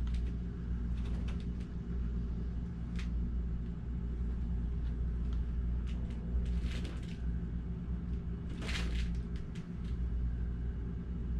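A steady low hum, with a few faint, brief rustles and clicks.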